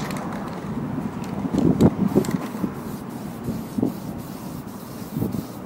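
Aerosol spray-paint can spraying in short hisses, over low uneven rustling and knocks.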